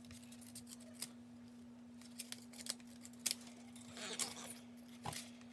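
Small scissors snipping through a paper envelope: scattered sharp snips, the loudest about three seconds in, with a short paper rustle about four seconds in. A steady low hum runs underneath.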